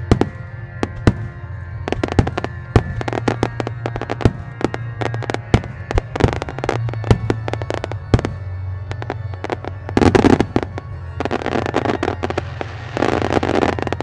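Starmine fireworks firing in quick succession: a rapid string of sharp cracks and bangs from shells launching and bursting, several a second, with music underneath. Thicker stretches of rushing noise come about ten seconds in and again near the end.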